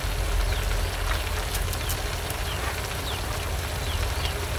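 Mushrooms and leafy greens simmering in a wok over a wood fire: a steady bubbling hiss with scattered small pops and crackles over a low rumble.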